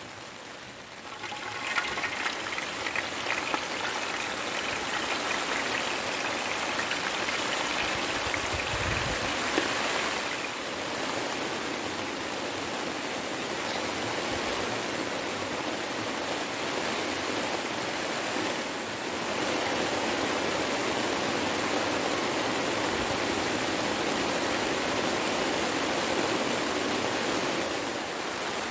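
Heavy rain falling, a dense, steady hiss of water that grows louder about a second and a half in and then holds.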